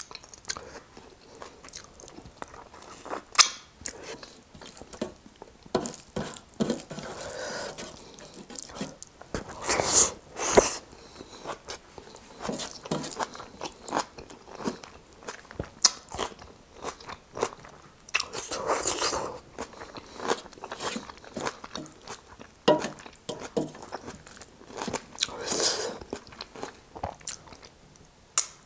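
Close-up eating sounds of spicy pork leg with rice eaten by hand: biting and chewing with many sharp wet mouth clicks and some crunch. There are a few longer, noisier stretches about ten, nineteen and twenty-five seconds in.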